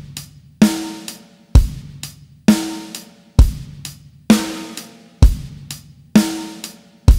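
Pop drum-kit groove at 65 beats per minute in 4/4, used as a metronome practice beat. Kick drum and ringing snare drum alternate on the beats, about one hit a second, with light hi-hat ticks in between.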